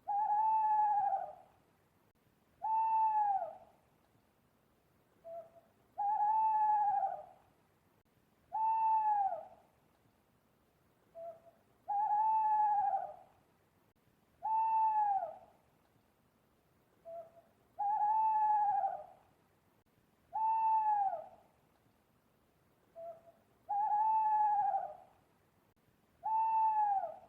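An owl hooting: a short low note followed by two long hoots that fall slightly at their ends, the same phrase repeating about every six seconds.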